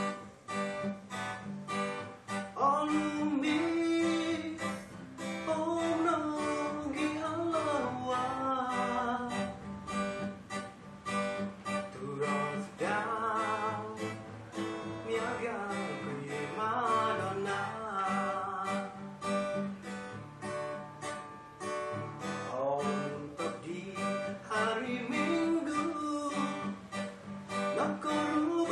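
A man singing a Dusun song while strumming an acoustic guitar in a steady rhythm.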